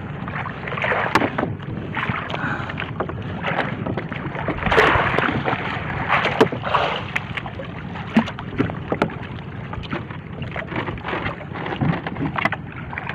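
Sea water splashing and sloshing against a small fishing boat's hull, with scattered knocks and rustling as the fishing net is handled at the side of the boat.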